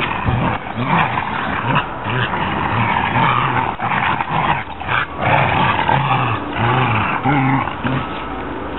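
Dogs play-growling in a tug of war, an Australian cattle dog and a Chinook, in a string of short growls that rise and fall in pitch. The growls die down near the end.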